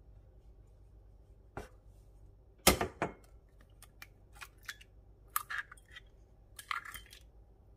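Eggs cracked against the rim of a ceramic bowl and pulled open. Two sharp knocks about three seconds in are the loudest, followed by scattered clicks and crackles of shell.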